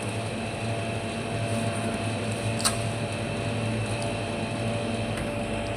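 Refrigerator compressor running with a steady hum just after the sealed system was flushed and recharged with refrigerant. A short click sounds about two and a half seconds in.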